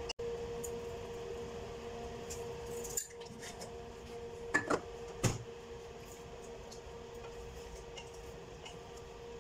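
A steady hum runs underneath. About four and a half to five seconds in come three sharp knocks of a spoon against the rim of an aluminium pot.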